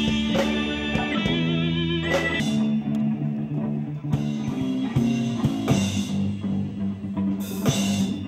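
Live band playing: electric guitar chords ringing out and changing every second or so, with a few cymbal crashes in the second half.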